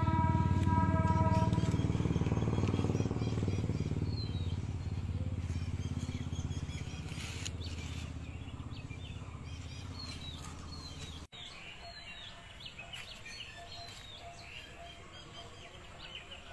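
An engine running and fading away over about ten seconds, with birds chirping; after a brief break about eleven seconds in, only the birds' chirping remains.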